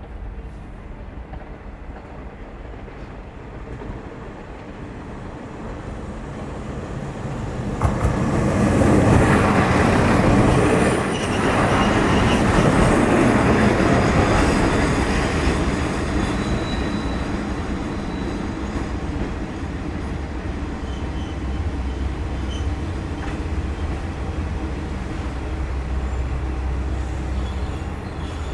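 Kanto Railway Joso Line diesel railcar running past, growing louder from about four seconds in and loudest between about eight and fifteen seconds, with a sharp knock near eight seconds and a thin high squeal from the wheels. It then settles to a steady low diesel rumble.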